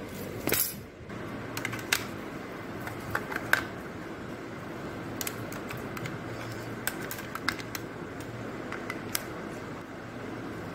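Light clicks and clatters of pencils and a compass being handled and put away in a metal geometry box, with a short rustle near the start, over a steady low hum.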